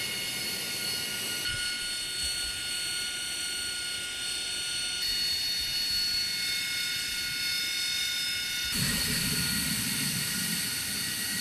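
AV-8B Harrier II's Rolls-Royce Pegasus turbofan running on the ground: a steady high whine of several held tones over a hiss. The sound changes abruptly twice partway through and again near the end, where a low rumble joins the whine.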